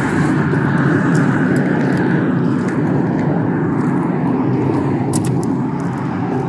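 Steady car noise from engine and road, with a few faint scattered clicks.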